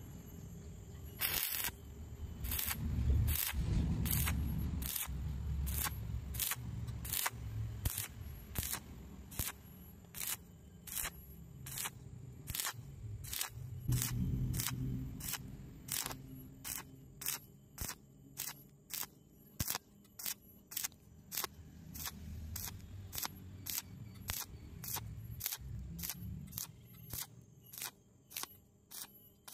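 Stick-welding arc from an MMA electrode burning up a vertical joint in steel tube. A sharp crackling pop repeats about twice a second as the rod is worked up the seam.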